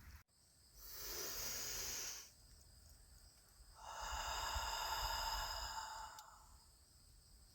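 A person taking slow, deep breaths close to the microphone: two long breaths, the second longer than the first.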